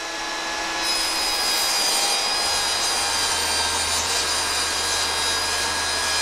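Table saw running at full speed with a steady motor whine, its blade ripping through a thin sheet of 3/16-inch lauan plywood from about a second in.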